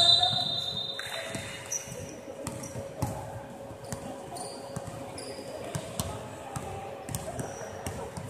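Basketball bouncing irregularly on a hardwood court, mixed with short high squeaks of sneakers on the wooden floor, loudest at the start.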